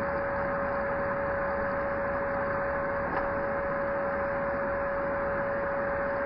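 Tevo Tarantula 3D printer running mid-print: a steady whine over an even whirring hiss, with a brief dip in the whine about three seconds in.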